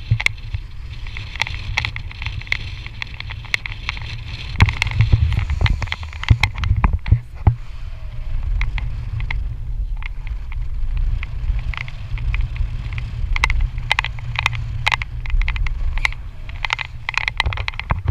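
Wind buffeting the microphone high up on a parasail: a heavy, uneven low rumble with frequent sharp knocks and crackles from the mic being jostled.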